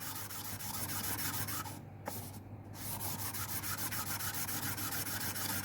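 Camshaft bearing cap being rubbed back and forth by hand on fine 800-grit sandpaper laid flat, lapping off the rough factory milling from its mating face. The steady rubbing dips briefly about two seconds in.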